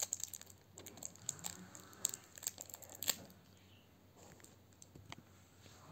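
Candy wrapper being crinkled and torn at by hand while someone struggles to open it: a scatter of faint crackles and clicks, thicker in the first three seconds and sparser after.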